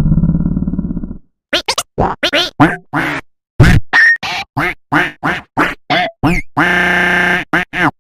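A low, drawn-out grunt-like voice lasting about a second, then a fast run of short voice-like sounds, sharply cut apart, about four a second, with one longer held tone near the end.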